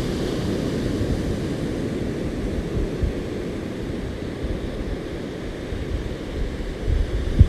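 Ocean surf washing steadily, a low rushing noise that swells heavier near the end.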